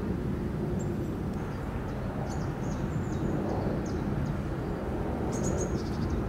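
City street ambience: a steady low rumble of traffic, with scattered short high chirps about a second and a half in and again near the end.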